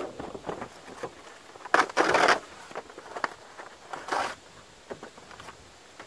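Cardboard being torn by hand: two ripping bursts, a longer, louder one about two seconds in and a shorter one about four seconds in, with light rustling and scraping between.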